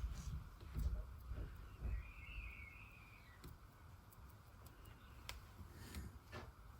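Faint scattered clicks and light knocks of small objects being handled, with a brief wavering high chirp about two seconds in.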